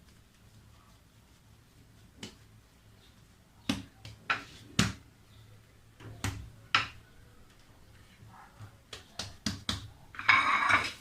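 Scattered knocks and taps of kitchenware handled while shaping pizza dough, some with a dull thud, and a short scraping rustle near the end.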